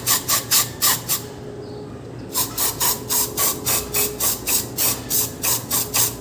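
Aerosol carb cleaner sprayed onto a MAF sensor in rapid short hissing bursts, about four a second, with a pause of about a second near the start before the bursts resume.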